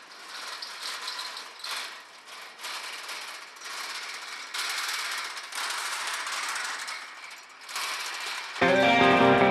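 Whiskey barrels rolling along a steel barrel run, a continuous clattering rattle that rises and falls as the barrels pass. Acoustic guitar music comes in near the end.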